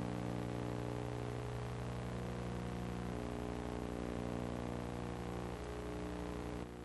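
Steady electrical hum with hiss, a transfer's noise floor rather than any sound from the scene; it drops slightly and the hiss thins near the end.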